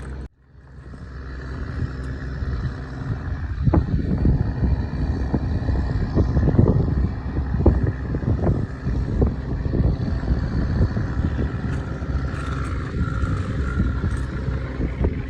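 Steady low vehicle-like rumble that builds up over the first couple of seconds after a brief dropout, with uneven low thumps through it.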